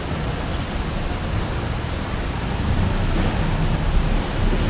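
Steady road-traffic noise with a low engine rumble.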